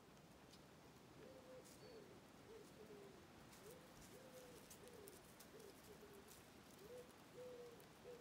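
Faint pigeon cooing: a steady run of soft, low coos, each rising and falling in pitch, starting about a second in and going on without a break.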